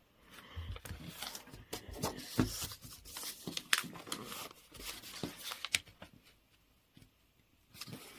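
A sheet of origami paper being folded and creased by hand: crinkling and rustling with sharp little taps and scrapes. It goes quieter about six seconds in.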